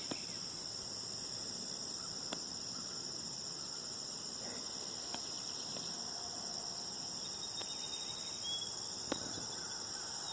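Night chorus of crickets and other insects: a steady, high-pitched trilling that runs on unbroken, with a few faint clicks scattered through it.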